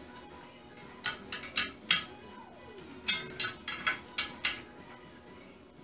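Socket ratchet clicking on a bolt of a steel target frame, with the nut held by a crescent wrench: two short bursts of rapid metal clicks, one about a second in and a longer one about three seconds in.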